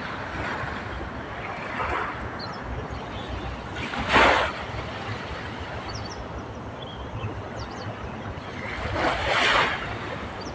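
Sea waves washing ashore, the surf swelling about two, four and nine seconds in, the one near four seconds loudest and sharpest. Faint short bird chirps come through a few times.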